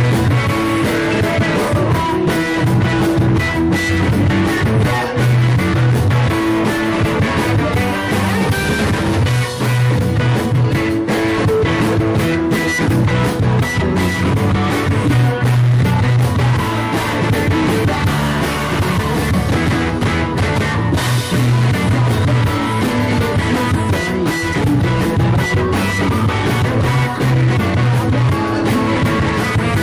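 Rock band playing live: electric guitar, bass guitar and drums, with a singer's voice over them.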